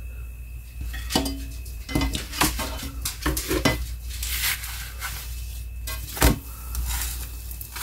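Plastic spatula scraping and clicking against a nonstick electric skillet as it slides under a cooking flour tortilla, in a run of short scrapes and taps, then one louder knock a little after six seconds in as the tortilla is flipped.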